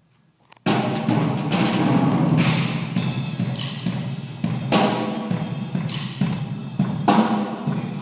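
Winter drumline (indoor marching percussion ensemble) coming in all together after a brief silence and playing loudly, with repeated crashing accents through the passage.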